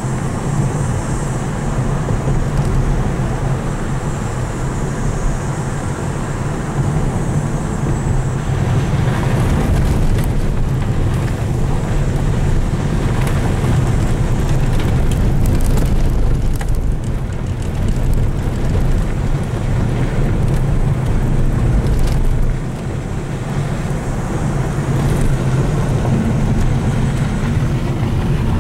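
Car driving on a gravel road, heard from inside the cabin: a steady low rumble of engine and tyres on the loose surface.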